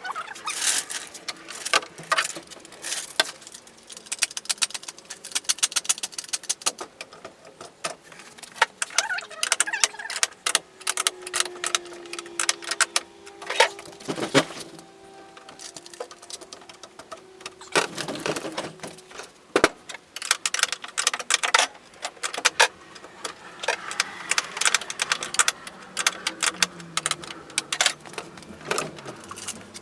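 Irregular metallic clinks, clanks and knocks of hand tools working on a car door's hinge bolts, some strikes ringing briefly.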